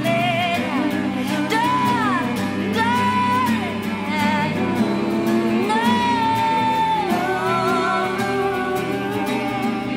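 Background music: a slow song with a wordless sung melody, the voice gliding between long held notes over guitar accompaniment.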